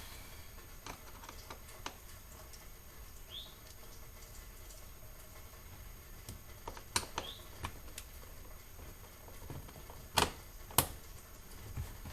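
Scattered light clicks and taps of a screwdriver and screws working on a car's plastic door trim, with two sharper clicks close together near the end.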